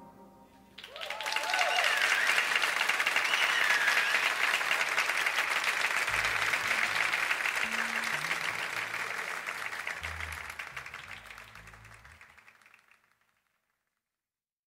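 A live audience applauding, with a few whistles as it begins, at the end of a jazz quartet number. The applause fades out in its last few seconds.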